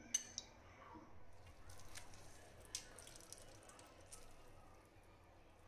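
Faint squelching and dripping as salted bitter gourd slices are squeezed by hand, the juice running into a steel bowl, with a few light clinks early on and once near the middle.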